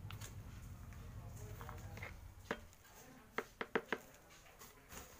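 Hands working potting soil around a newly planted caladium in a plant pot, giving sharp clicks and taps: one about halfway through, then four in quick succession. A low hum fades out before the clicks.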